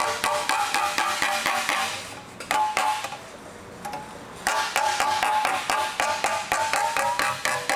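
Hammer striking sheet metal held against a hand-made dolly, fast ringing blows about five a second, stretching a fender panel. The hammering stops for about two seconds in the middle, with a single blow, then resumes just as fast.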